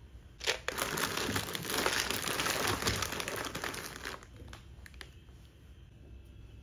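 Foil and plastic snack packaging crinkling for about three seconds as it is handled and pushed into place in a woven basket, after a light knock, with a few faint taps near the end.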